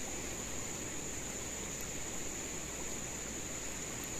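Steady rushing of a fast-flowing shallow river over stones, with a constant high-pitched insect drone above it.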